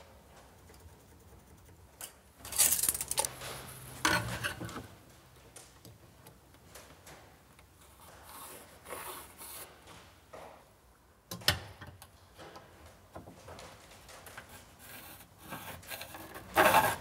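Pencil drawing short lines on a laminate cabinet door: a few brief scratchy strokes. Sharp knocks as tools are handled, one about midway and a louder one near the end.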